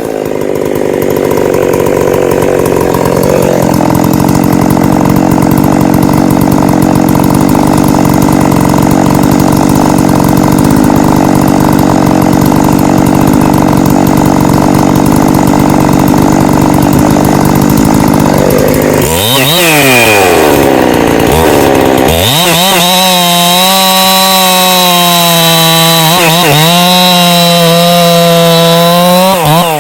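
Ported Husqvarna 365 Special two-stroke chainsaw cross-cutting a log at full throttle, running steadily while pulled down in the cut for most of the time. About nineteen seconds in, the engine pitch sweeps up and down several times, then the saw runs at a higher, steady, slightly wavering pitch with less cutting noise.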